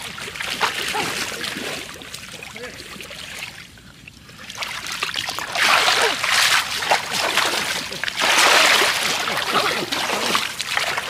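Splashing in shallow muddy water as a plastic basket is plunged and slapped into it and feet slosh through it, lighter at first and then heavy, repeated splashing from about five seconds in.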